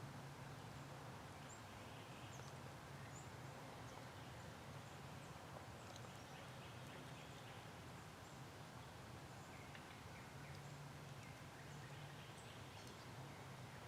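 Quiet woodland ambience at dawn: scattered faint songbird chirps over a low steady hum, with a few faint ticks that may be leaves stirring.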